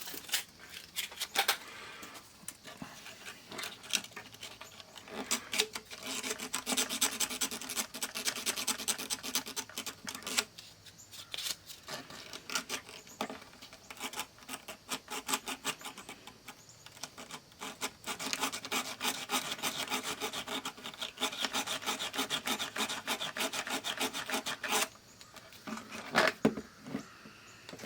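Rapid back-and-forth scraping and rubbing on a corroded battery contact inside an analog multimeter's battery compartment, as the corrosion left by a leaking C battery is cleaned off. The strokes come in long runs, pausing briefly twice.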